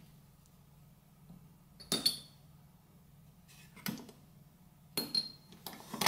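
A whiskey stone dropped into a glass of whiskey, clinking sharply against the glass about two seconds in with a short ringing tone. A second ringing clink about five seconds in, and a few light knocks near the end.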